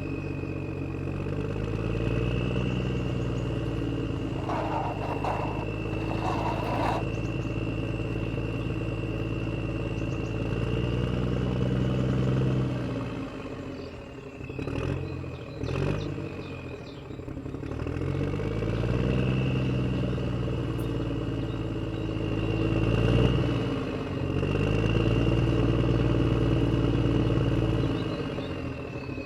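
A vehicle engine running and revving up and down several times, with a steady high-pitched whine over it and a few knocks about five to seven seconds in.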